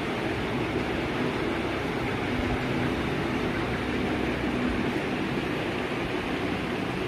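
Steady rushing noise with a faint low hum running under it.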